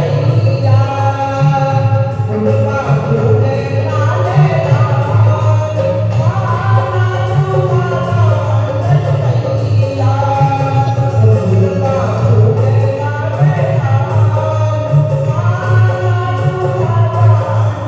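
Singing of a Hindi devotional Hanuman bhajan over a steady, loud low accompaniment.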